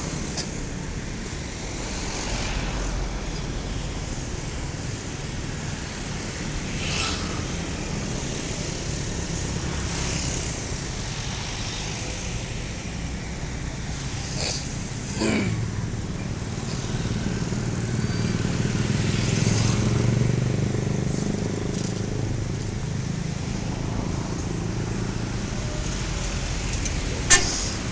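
Bus engine running steadily, a low hum, with a few short hissing noises and a sharp click near the end.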